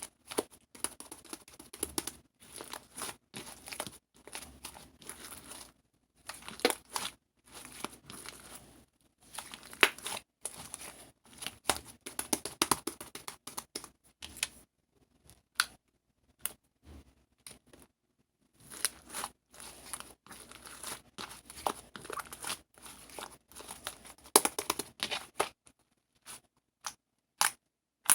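Crinkling and rustling of thin material handled close up, with tearing sounds; irregular, dense crackles that pause for a few seconds midway and again near the end.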